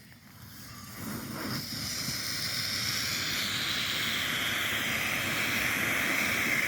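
Smoke firework hissing steadily as it burns and pours out smoke, building up about a second in.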